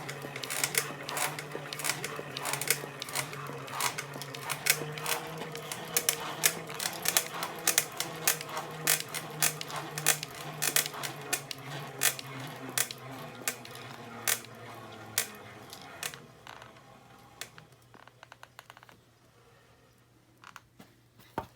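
A small machine running with a steady low hum and rapid, irregular clicking. The strange noise of a device after a repair. About sixteen seconds in, the hum and most of the clicking stop, leaving only faint scattered clicks.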